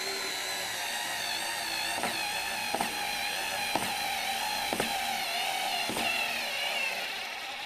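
Parkside PAS D5 4-volt cordless screwdriver with its 90-degree angle attachment driving a screw: a steady geared motor whine under load with a light click about once a second. It cuts out near the end as the tool's overload protection stops it.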